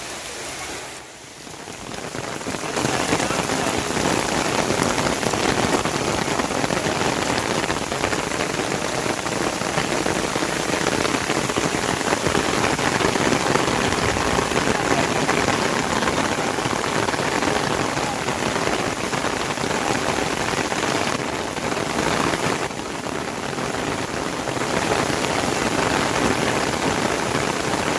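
Heavy rain falling steadily, a dense even hiss of drops, briefly quieter about a second in and again about two-thirds of the way through.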